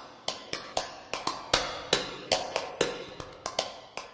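Background music made of sharp percussive taps, several a second, each ringing briefly.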